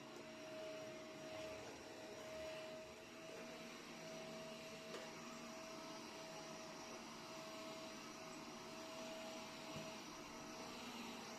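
Faint steady machine hum: one steady mid-pitched tone over a low hiss, with a faint tick about five seconds in.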